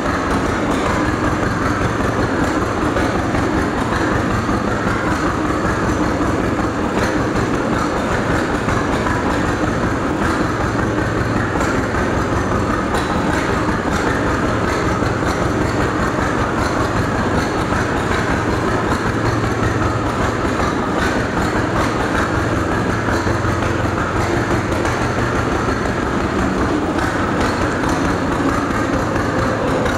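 1933 John Deere GPO tractor's two-cylinder engine running steadily as the tractor is driven along, with a fast, even beat of firing pulses.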